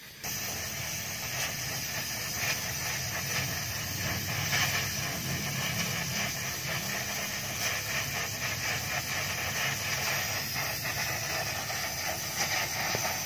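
Welding torch hissing steadily, with light crackling, as filler rod is melted into the seam of a steel motorcycle exhaust silencer.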